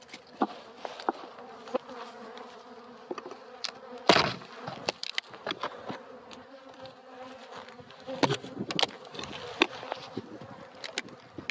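Honeybees buzzing around an opened hive, a steady wavering hum from bees stirred up and flying at the beekeeper. Sharp knocks and clicks come through it, the loudest about four seconds in and a few more around eight seconds.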